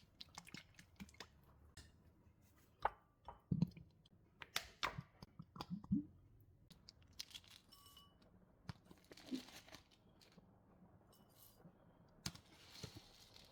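Objects being handled indoors: scattered sharp clicks and light knocks, busiest a few seconds in, with a soft rustle or tearing among them.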